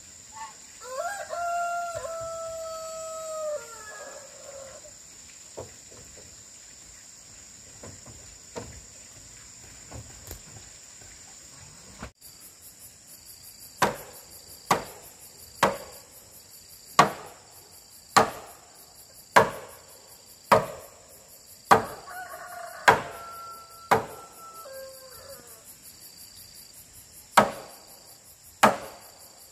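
A rooster crows twice, once near the start and again about two-thirds through, over a steady high insect drone. From about the middle on, sharp knocks come regularly, roughly one a second, with a short gap near the end.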